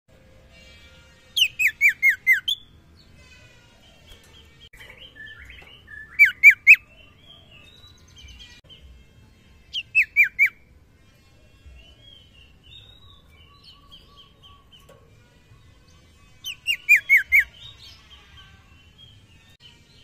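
Common iora (sirtu) singing: four loud bursts of quick, downward-sliding whistled notes, a few notes each, with softer twittering and chattering in between. The song is a male calling for a female.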